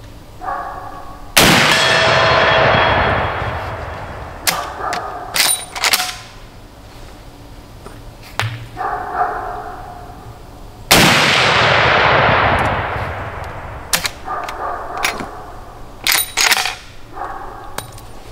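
Two shots from a Henry lever-action rifle in .45-70 Government, about nine and a half seconds apart, each with a long tail fading over a few seconds. After each shot comes a quick run of metallic clacks as the lever is worked to cycle the next round.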